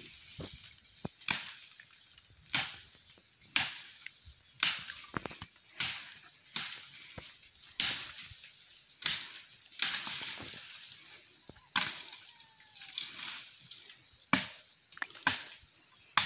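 Blade chopping into wood, sharp strikes at an uneven pace of roughly one a second, as a fallen tree is cut up.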